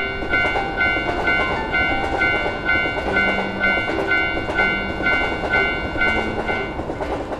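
Railroad crossing bell ringing the Japanese "kan-kan" in an even repeating pattern, about two strikes a second, over the continuous running noise of a passing train.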